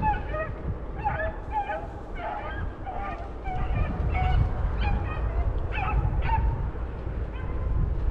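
A small pack of rabbit-hunting hounds baying as they run a rabbit's track, with many short, overlapping cries several a second that thin out after about six and a half seconds, over a steady low rumble.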